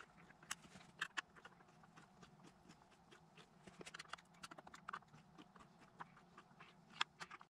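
Faint, irregular clicks and ticks of a hand screwdriver turning screws on a speaker's amplifier board, with small knocks as the board is handled.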